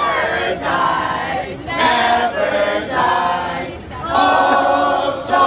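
A crowd of protesters chanting together in unison, their voices pitched almost like singing, in short phrases about a second apart.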